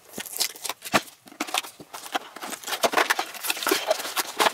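Cardboard product box being opened by hand: flaps and an inner tray sliding and scraping, with rustling and small knocks, and one sharper knock about a second in.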